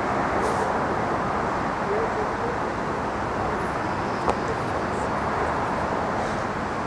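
Steady outdoor city background noise, a low even hum of distant road traffic, with a single sharp tap about four seconds in.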